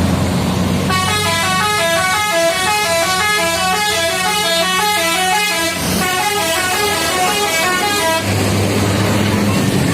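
Bus's 'telolet' musical multi-tone horn playing a quick tune of rapidly changing notes for about seven seconds, with a brief break partway through, over the low hum of the bus's engine.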